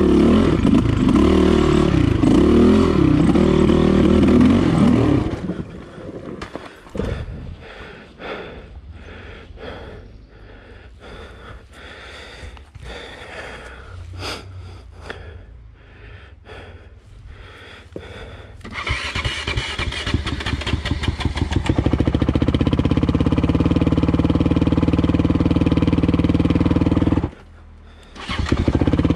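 Dirt bike engine revving hard on rough single-track for about five seconds, then dropping to a low idle for a long stretch broken by knocks and clatter, before picking up and running loud and steady again for the last ten seconds, with a short drop near the end.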